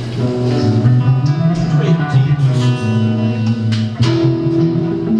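Electric guitar and bass played live: loose held notes and a few plucked chords over a steady bass note, noodling between songs rather than a song proper.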